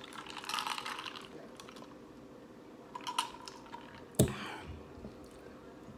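Close-miked chewing of a crunchy hard-shell taco: a burst of crunching about half a second in, then scattered mouth clicks and smacks, the loudest a little after four seconds.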